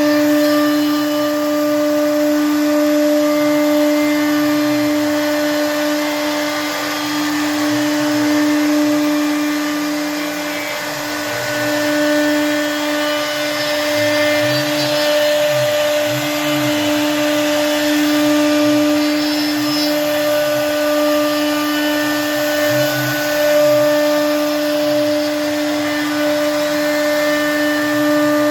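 Double-spindle CNC wood router running, its spindles giving a steady high whine over the noise of the bits cutting wood.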